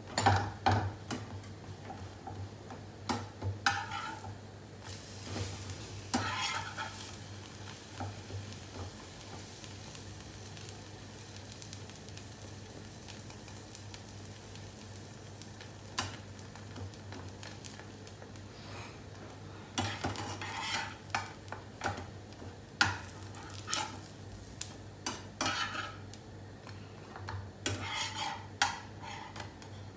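Bread frying in butter, sizzling in a nonstick frying pan. A spatula scrapes and knocks against the pan as the slices are pushed and turned, in clusters during the first few seconds and again through the last ten. A steady low hum runs underneath.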